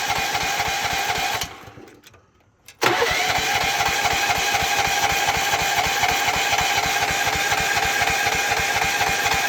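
Rippa Mule Trac mini excavator's petrol engine being cranked on the electric starter in two attempts, each beginning with a rising whine and a fast, even chugging. The first stops about a second and a half in, and the second starts near three seconds and keeps cranking. It is a hard-starting engine that is trying to fire but will not keep running.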